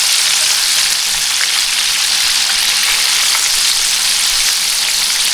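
Flour- and egg-coated chicken strips deep-frying in hot oil, a steady loud sizzle with small crackles and pops through it.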